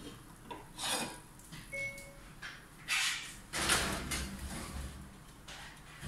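A metal skillet being set and slid onto a wire oven rack: a few scrapes and clanks, the loudest about three and a half seconds in.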